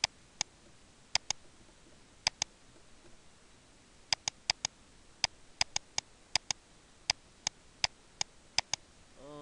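Sharp clicks of a computer mouse and keyboard, about twenty in irregular runs, some in quick pairs, over faint room hiss.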